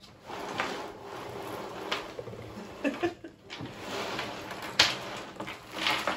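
A heap of small plastic toy figures and toys in plastic bags being pushed and spread across a table by hand: rustling plastic and clattering figures, with a couple of sharper clicks near the end.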